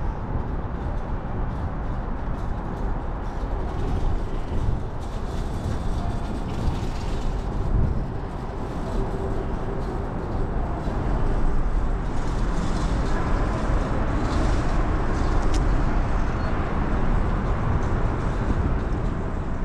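Outdoor city ambience dominated by a loud, uneven low rumble of wind buffeting the microphone of a handheld 360 camera.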